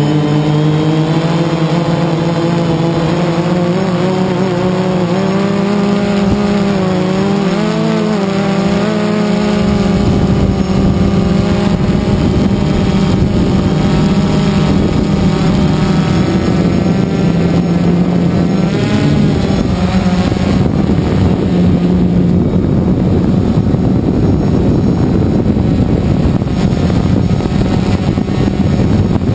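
A DJI Phantom 2 quadcopter's motors and propellers humming as heard from its own onboard camera, the pitch rising and falling as the motor speeds change. From about a third of the way in, a rough rushing of wind and rotor wash on the microphone grows over the hum, and the hum fades out in the second half.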